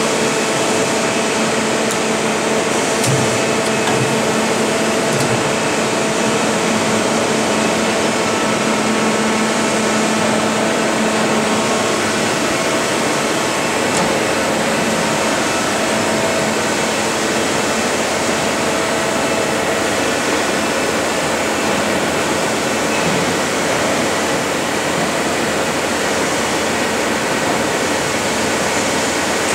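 Forest Line CNC floor-type boring mill running under power: a steady mechanical whir and hum with several held tones, with a few light knocks a few seconds in.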